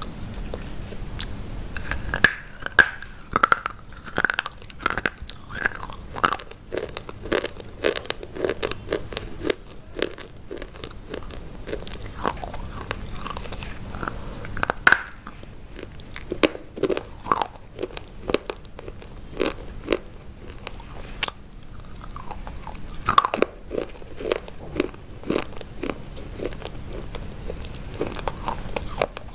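Close-miked biting and crunchy chewing of white chalk-like sticks: sharp crunches come in clusters as pieces are bitten off and chewed, with the loudest bites about 2, 15 and 23 seconds in.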